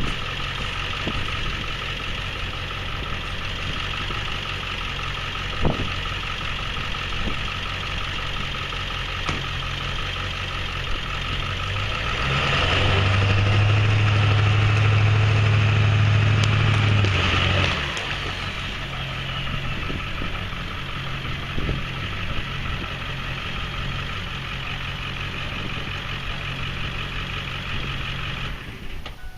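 Ford Super Duty pickup's engine running steadily, then working harder and louder for about five seconds in the middle, under load from pulling a tree out of the water on a tow strap, before easing back.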